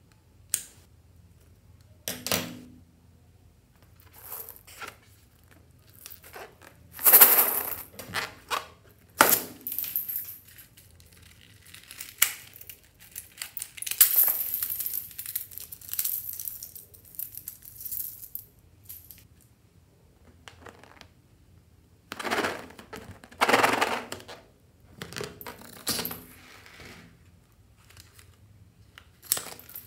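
Scissors snipping repeatedly through lipstick and small decorations, with cut pieces and confetti dropping and scattering into a glass dish of slime, in separate bursts with short pauses.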